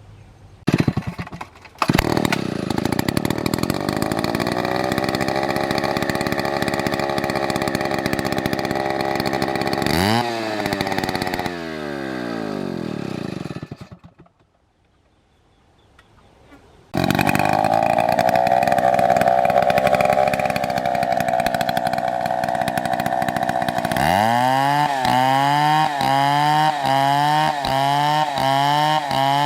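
Chainsaw engine starting and running, revving up about ten seconds in, then cutting out for a few seconds. It starts again and runs, and near the end its pitch rises and falls in quick repeated pulses.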